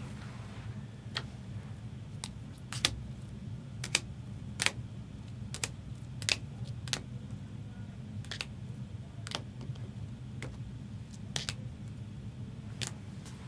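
Plastic trading-card cases being handled: about a dozen sharp, irregular clicks and knocks, over a low steady hum.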